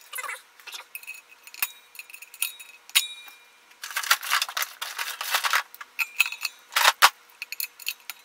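Pliers clicking and scraping on a ceiling fan's metal motor housing while a part on the centre shaft is worked loose. There are short metallic clinks throughout, a brief ringing ping about three seconds in, and a longer scrape from about four to five and a half seconds in.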